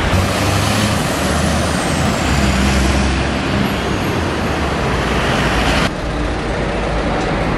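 Road traffic: a heavy lorry's engine running close by, a steady low rumble under the noise of cars passing, with a faint high whine falling in pitch about a second in. The sound drops abruptly about six seconds in.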